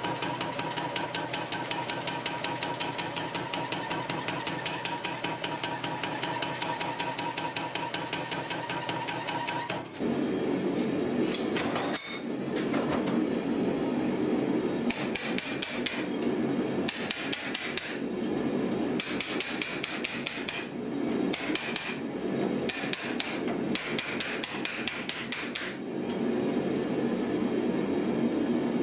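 Power hammer pounding hot steel with rapid, even blows for about ten seconds, then stopping. After that, a hand hammer strikes a splitting chisel driven into the red-hot axe bit held in a vise, in bursts of blows with metallic ringing, splitting the bit open to take an inserted steel edge.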